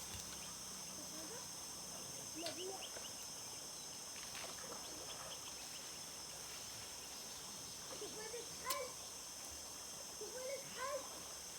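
Countryside ambience: a steady high-pitched insect drone, with short wavering calls a few times and a sharp click about nine seconds in.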